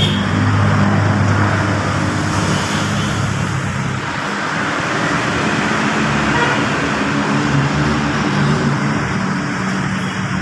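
A motor vehicle engine running steadily, amid a constant traffic-like noise.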